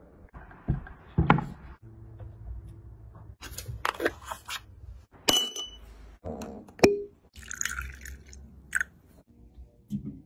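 Close-up kitchen handling sounds: a string of knocks and taps, the crinkle of aluminium foil being unrolled, and a knife cutting on a plastic cutting board near the end.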